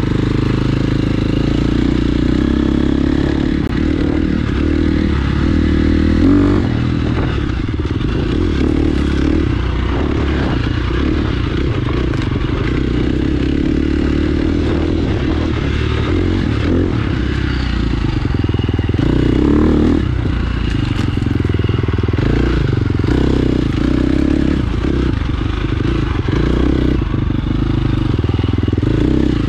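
KTM 350 XC-F four-stroke single-cylinder dirt bike engine running under load as the bike is ridden round a track, its revs rising and falling.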